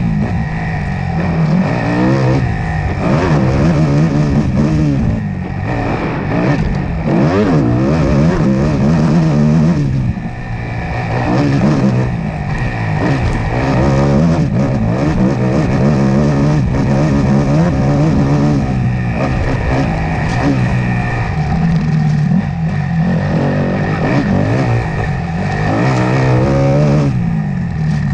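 Dirt bike engine running hard under racing load, its revs rising and falling again and again as it is throttled up, shifted and backed off.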